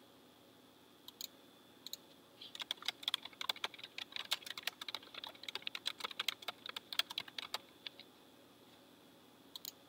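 Typing on a computer keyboard: a few single clicks, then a run of quick keystrokes lasting about five seconds, then a couple more clicks near the end.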